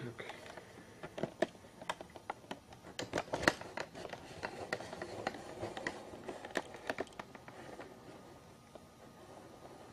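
A run of irregular sharp clicks and scratches, densest through the middle and thinning out near the end, over a faint hiss in a small room.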